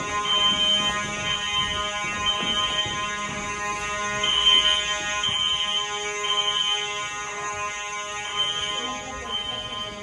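Building fire alarm horns sounding: a continuous buzzing mechanical horn under System Sensor SpectrAlert Classic and L-Series electronic horns blasting in the temporal-three evacuation pattern, three blasts about a second apart, then a pause, repeating.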